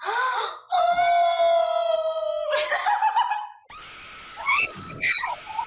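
A person screaming in fright at a jumpscare: a short wavering cry, then one long high scream held for about two seconds. It breaks into laughing shrieks.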